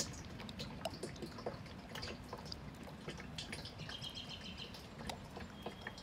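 Used engine oil pouring in a thin stream through a plastic funnel into a plastic jug, with small irregular drips and splashes. Birds chirp faintly about four seconds in.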